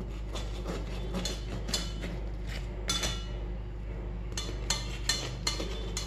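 Steel spoon clinking and tapping against a metal baking tin and the buns as butter is spread over them, a series of short, irregular clinks over a steady low hum.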